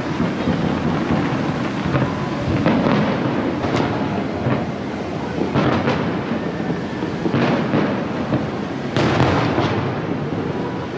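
Fireworks display going off: a continuous rumble of booms with sharp bangs every second or two.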